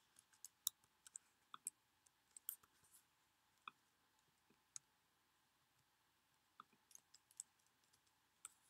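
Faint, sharp clicks of computer keyboard keys being pressed one at a time in short runs, with a pause of a few seconds in the middle.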